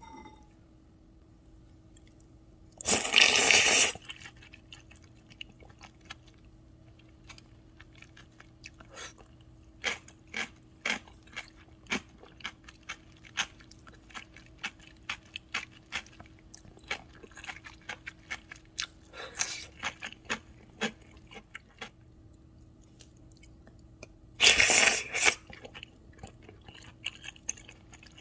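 Eating sounds of udon noodle soup: a loud slurp of noodles about three seconds in, then chewing with many small wet clicks and smacks, and another loud slurp near the end.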